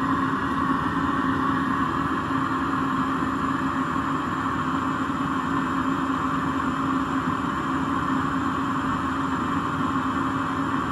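Eberspächer D1LC diesel air heater running steadily on paraffin, its blower fan and burner giving a constant whirring hum with a steady tone. It is running at full heat, the output air almost too hot to hold a hand in front of.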